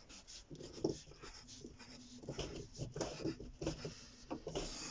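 Pencil scratching on drawing paper in a series of short, quick strokes.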